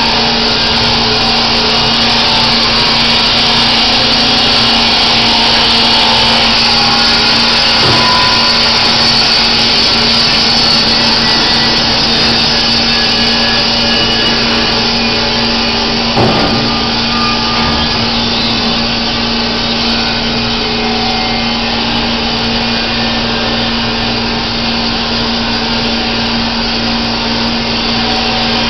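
Baker Products Super Streak band sawmill running, a loud steady machine noise with a constant hum. A single knock sounds about sixteen seconds in.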